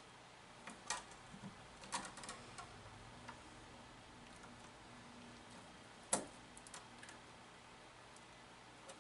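Hand wire strippers clicking and snipping as insulation is stripped off electrical wires, a handful of scattered sharp clicks with the loudest about six seconds in.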